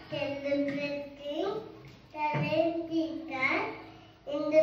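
A young boy's voice in a sing-song recitation: long held notes, each ending in an upward glide, with short pauses between phrases.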